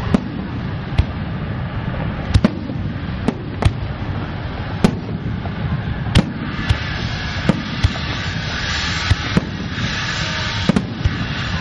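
Aerial fireworks display: sharp shell bursts bang at irregular intervals, about one or two a second, over a steady low rumble, with a spell of dense crackling in the latter half.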